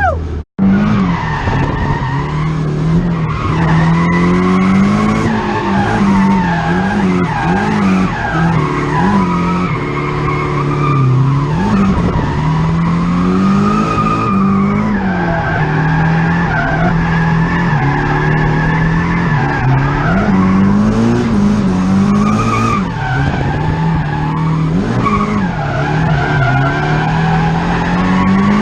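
Nissan 240SX's turbocharged SR20DET four-cylinder with a straight-pipe exhaust, held high in the revs while drifting, its pitch rising and falling over and over as the throttle is worked, with tyre squeal over it. The sound cuts out for an instant about half a second in.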